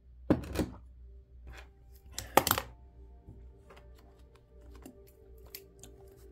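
Two short bursts of hard clattering from small objects handled on a desk, about a third of a second and two and a half seconds in, followed by lighter scattered clicks. Faint background music underneath.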